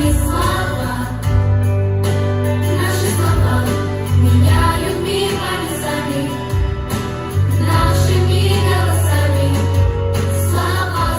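Pop song on a backing track with a group of voices singing together over a heavy held bass line.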